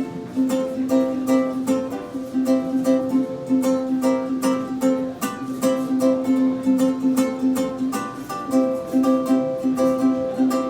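Ukulele strummed in a steady, bouncy rhythm: the instrumental intro of a song, chords played without singing.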